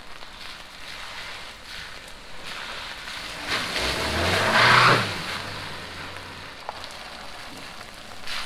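A 2009 Kia Sportage on 31-inch tires drives past on wet pavement: engine hum and tyres hissing through standing water, building to its loudest about four and a half seconds in, then fading away.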